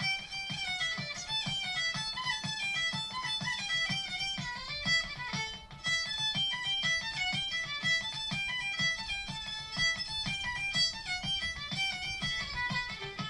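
Background music: a fiddle tune with plucked guitar accompaniment and a steady beat.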